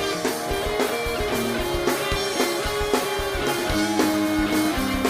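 Live band playing an instrumental passage between sung lines: guitar notes over a steady drum beat.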